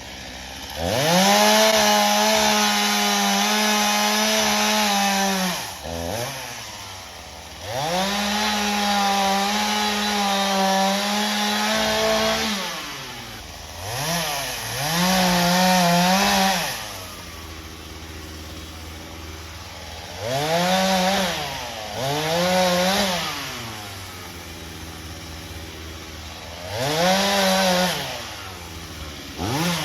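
Gasoline chainsaw revving to full speed and holding there for two long stretches of several seconds each, dropping back to idle between them. It then gives shorter revs, twice in quick succession and again twice, and once more near the end.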